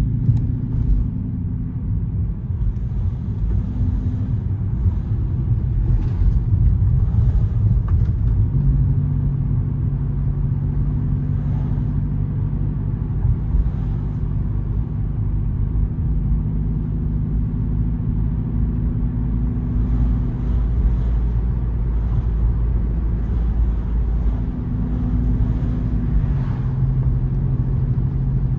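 A car driving, with a steady low rumble of engine and road noise. The engine tone shifts pitch a couple of times, about a third of the way in and again near the end.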